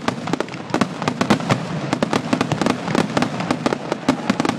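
Fireworks display: a rapid barrage of aerial shells and crackling bangs, several sharp reports a second with no break.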